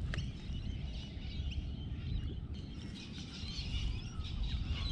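Birds chirping and twittering in short, scattered calls over a low steady rumble.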